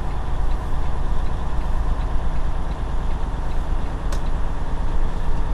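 Detroit DD15 inline-six diesel engine of a Freightliner Cascadia semi truck running steadily at low speed, heard from inside the cab, with one brief click about four seconds in.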